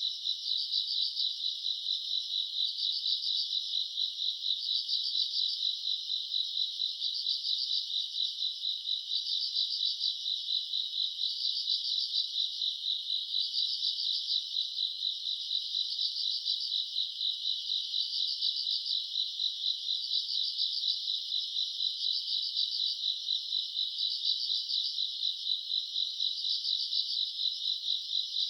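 Crickets chirping in a dense, continuous night chorus of high trills, swelling and easing about every two seconds.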